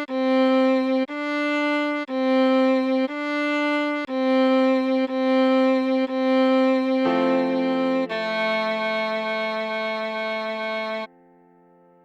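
Viola playing a slow melody: a run of separate bowed notes about one a second, then a lower note and a long held note that stops about eleven seconds in.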